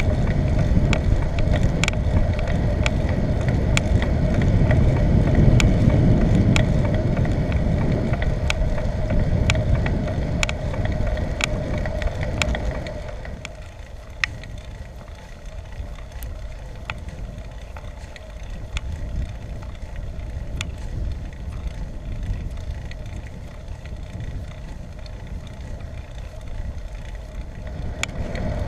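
Bicycle ride noise: wind on the microphone and tyre rumble, heavy at first and dropping off about halfway through, with small sharp ticks and rattles every second or so.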